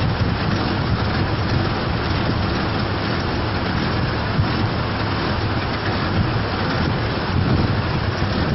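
Steady rushing noise of a muddy flash flood (huayco) pouring across a road, with a vehicle's engine running underneath.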